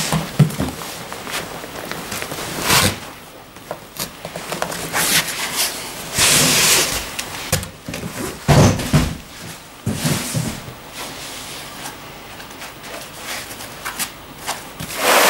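Packing being handled: foam blocks and cardboard scraping and rustling with irregular dull knocks, loudest about eight to ten seconds in, as a heavy floor-standing speaker in foam end-blocks is pulled from its carton and laid down.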